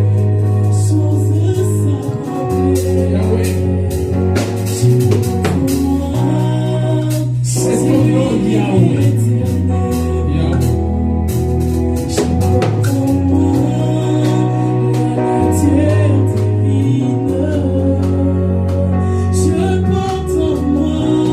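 Gospel worship music: voices singing over instruments, with a bass line holding long notes and percussion keeping time.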